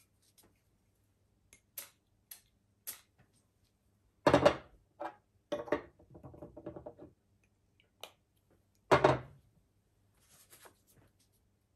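Light clicks of a Franck Olivier Oud Touch bottle and cap being handled, then short hissing bursts of its atomizer spraying, the loudest about four seconds in and again about nine seconds in.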